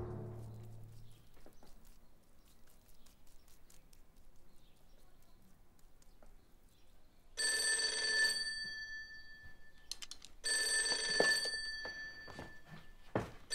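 A telephone ringing twice, each ring a little over a second long and about three seconds apart, starting about seven seconds in after a quiet stretch.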